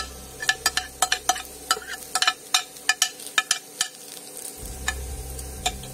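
Metal spoon scraping and tapping chopped vegetables off a plate into a bowl, with many quick irregular clicks that thin out about halfway through, over the steady sizzle of diced potatoes frying in oil.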